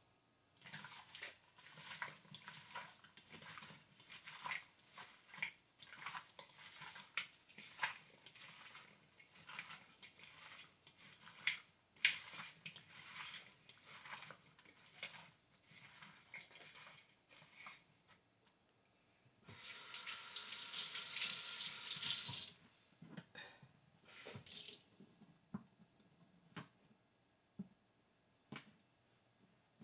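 Hands mixing pieces of goat meat with chopped vegetables and seasoning in a mixing bowl: a long run of soft, wet clicks and squelches. About two-thirds of the way through, a kitchen sink tap runs for about three seconds, the loudest sound here, followed by a few more scattered clicks.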